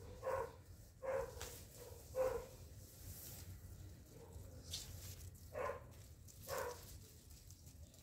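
A dog barking: five short barks, three about a second apart, then two more after a pause of about three seconds.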